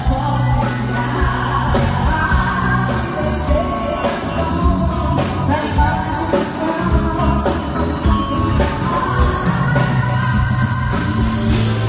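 Live band music: women singing into microphones over a drum kit and bass, playing a song through the stage sound system.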